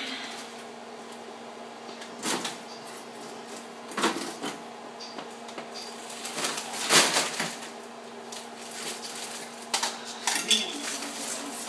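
Knocks and clunks of water containers being set into a refrigerator, the loudest just past the middle, over a steady low hum.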